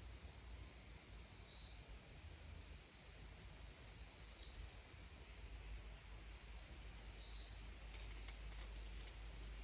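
Faint, steady high-pitched chorus of crickets, with a low wind rumble underneath and a few soft clicks near the end.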